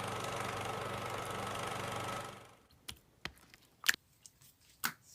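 A steady mechanical hum, like a small motor, runs and fades out about two and a half seconds in. It is followed by a few scattered sharp clicks and pops of slime being played with.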